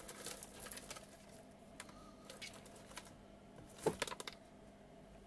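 Faint scattered clicks and light rustling of small parts being handled while DuPont jumper wires are fetched, with a sharper cluster of clicks about four seconds in, over a faint steady hum.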